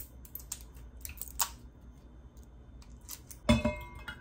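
Glass jar and metal spoon being handled: light clicks and taps, then a loud ringing clink about three and a half seconds in.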